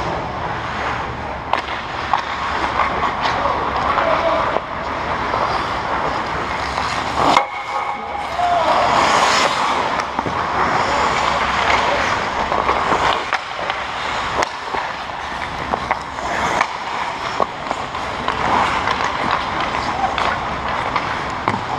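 Ice hockey play on an indoor rink: skate blades scraping and carving the ice, with sharp clacks of sticks and puck. A loud hissing scrape of ice about eight to ten seconds in, like a skater stopping hard.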